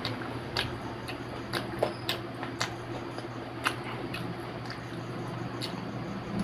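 Eating sounds from a crisp fried potato samosa being picked up and bitten: scattered sharp crackles and clicks, about eight spread over several seconds, over a steady low hum.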